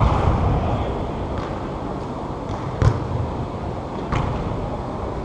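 Indoor soccer ball being kicked and striking the arena walls: four sharp thuds roughly a second and a half apart over a steady murmur of the hall.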